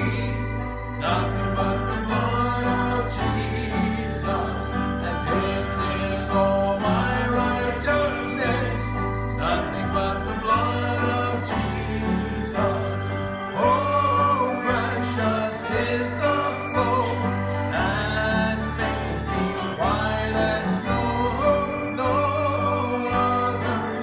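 A man singing a gospel song solo into a handheld microphone, over instrumental accompaniment with long held bass notes.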